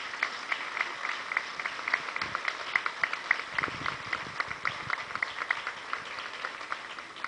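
Audience applauding: a steady patter of hand claps.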